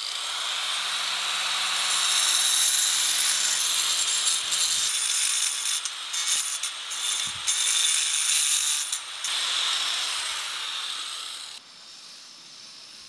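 Handheld angle grinder with a stone disc grinding into the edge of a granite block: a loud, gritty hiss over a steady motor hum, easing off briefly a few times as the disc bites and lifts. It stops about eleven and a half seconds in, leaving a quieter steady background noise.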